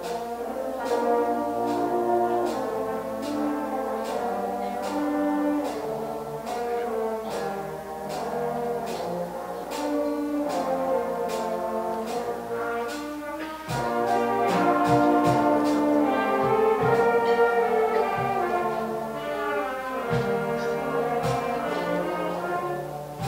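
A junior concert band of brass, woodwind and percussion playing live, with sustained brass chords over regular percussion strokes. The band grows louder about fourteen seconds in.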